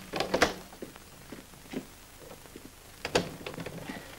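A room door being opened and a man's footsteps coming in: a handful of sharp clicks and knocks, the loudest about three seconds in, over the steady low hum of an early sound-film track.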